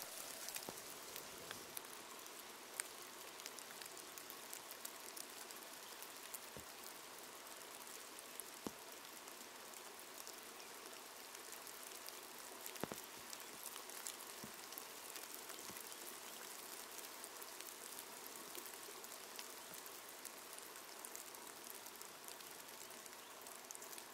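Light rain falling on a pond: a faint, steady patter of small drops, with a few louder single drops now and then.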